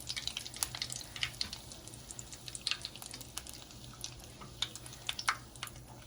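Canned-biscuit doughnut frying in hot oil: irregular crackling pops of the oil bubbling around the dough, over a faint low steady hum.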